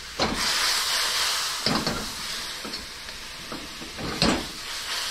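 Butter, chicken stock and oyster sauce sizzling and bubbling as the sauce reduces in a hot wok, with a few sharp knocks, the loudest about four seconds in.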